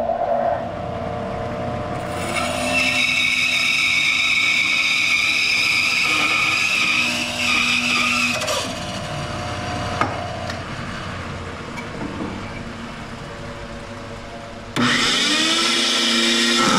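Band saw running and cutting through a block of jacaranda hardwood: for about six seconds the cut gives a loud, high whine, then the saw runs on more quietly. Near the end a louder benchtop jointer motor comes in suddenly, its pitch rising.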